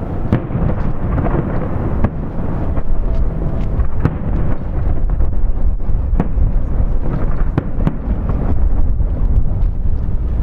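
Fireworks display: many shells bursting in quick succession, a continuous low rumble of bangs with sharp cracks throughout.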